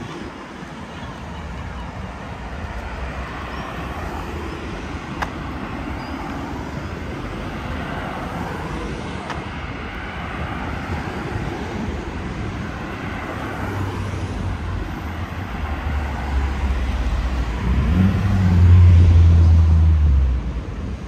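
Road traffic on a city boulevard: a steady hum of passing cars. About two-thirds through, a heavy vehicle's low engine drone builds, grows loudest as it passes close near the end, then drops away.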